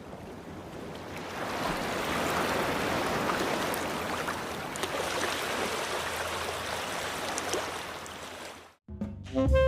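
A steady rushing noise, even and without any tone, fades in over the first couple of seconds, holds, then cuts off abruptly near the end. Jazz music with saxophone and drums starts straight after the cut.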